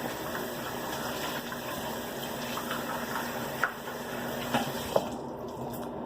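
Tap water running into a sink while a mixing bowl is rinsed out, with a few light knocks; the water cuts off about five seconds in.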